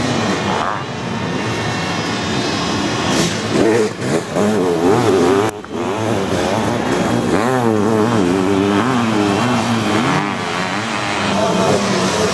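Racing sidecar motocross outfits' engines revving up and down as they race on the track, the pitch rising and falling over and over. The sound breaks off briefly about five and a half seconds in.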